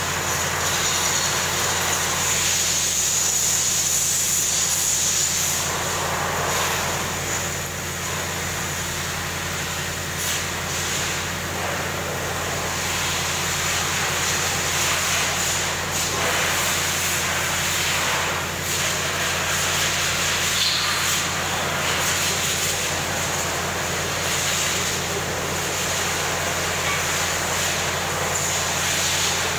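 BELAZ mining dump truck's large diesel engine idling steadily, with a steady high hiss over it and a few faint knocks.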